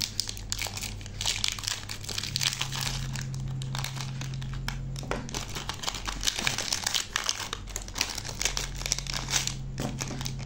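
Plastic biscuit wrapper crinkling and crackling as hands tear it open and pull at it, a dense run of rapid crackles.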